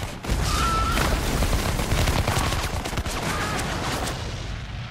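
Massed rifle fire: a dense, continuous volley of gunshots from many rifles at once.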